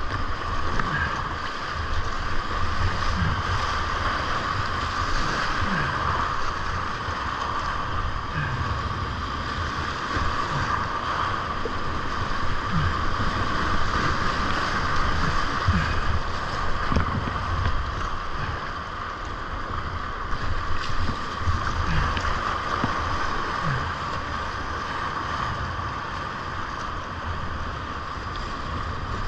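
Whitewater rapids rushing steadily around a kayak, with irregular low thumps from water slapping the hull and splashing the camera's microphone.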